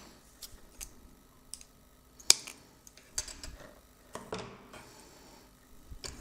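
Small, irregular clicks and taps as a small amplifier circuit board and thin hook-up wires are handled on a bench mat, with one sharper click about two seconds in and a short rustle of wire a little after four seconds.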